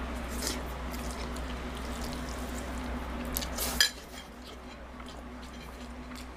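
Eating from a plate: faint clicks of cutlery against the plate over a steady low hum, with one sharper clink a little under four seconds in, where the hum stops.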